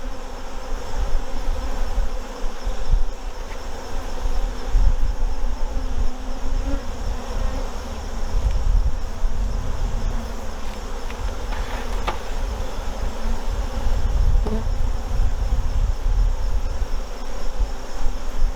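Honey bees buzzing steadily in the air around an opened hive, with a low rumble underneath.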